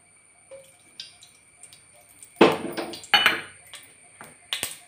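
Clanks and clinks against a stainless-steel pan as coconut oil is put in for tempering: two louder ringing clanks about two and a half and three seconds in, and a sharp click near the end.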